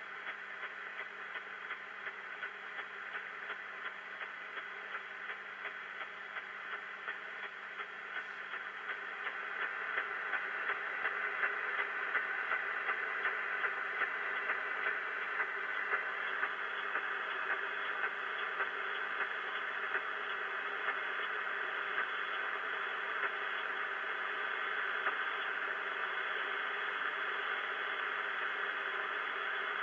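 HF radio receiver hiss with rain static (QRN) picked up on a Yagi antenna: a steady rush of noise broken by a regular run of short pops, growing louder about ten seconds in.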